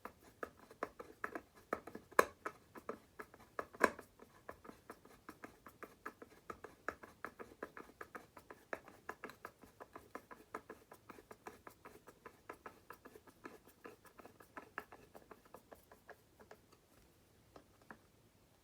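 A screw being turned in by hand to fasten a light socket to a project board: a quick, uneven run of small clicks and scrapes, several a second, that thins out and stops near the end.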